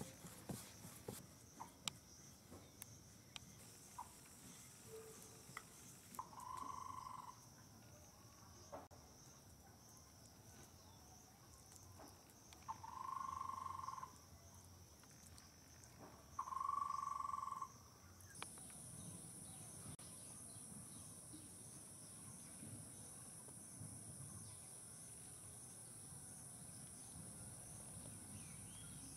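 Insects chirring steadily in the background, with a second, higher-pitched insect joining about two-thirds of the way through. Light knocks and taps in the first few seconds, and three separate steady-pitched tones of about a second each through the middle.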